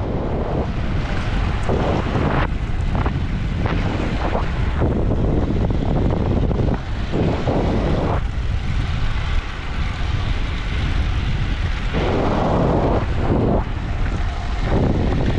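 Wind buffeting the microphone of a moving bicycle, a steady low rumble with swells of rushing noise several times.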